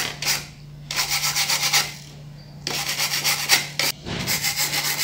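Scratchy rubbing noise in four bursts of up to about a second each, over a steady low hum.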